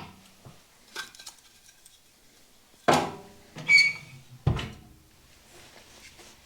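Handling while laying a fire in a wood stove: a series of scattered knocks and clunks of wood and metal, one ringing like struck metal just before the middle and a dull thud soon after.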